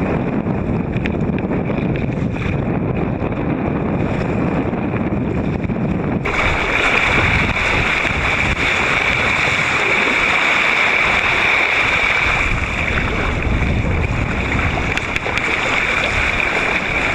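Wind and rough water rushing and splashing around a sea kayak sailing in a force 5 wind, heard through a waterproof camera housing on the deck. About six seconds in, the sound suddenly turns brighter and hissier.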